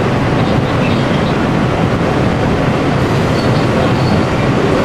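Train running at speed, heard from inside the driver's cab: a steady, even rumble of wheels on rails.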